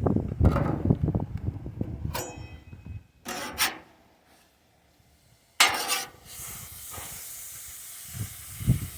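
Thin-sliced flank steak sizzling on a hot barbecue grill, with a metal utensil scraping and clinking against the cooking surface in the first few seconds, including one ringing metallic clink. The sound drops out for about a second and a half midway, then returns with a sudden clatter and a steady high sizzling hiss.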